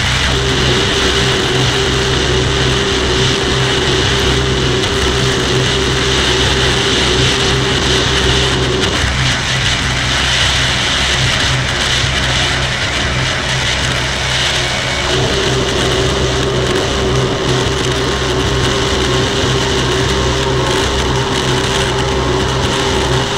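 Dense, steady droning noise with a low hum and hiss, typical of a dark-ambient or noise soundtrack. A held mid-pitched tone runs through it, drops out about nine seconds in and returns about six seconds later.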